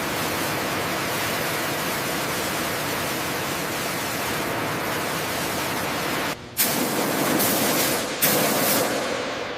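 Steady hissing spray, as from a sprayer applying corrosion-inhibiting treatment to metal. It stops briefly twice near the end, comes back louder each time, then fades.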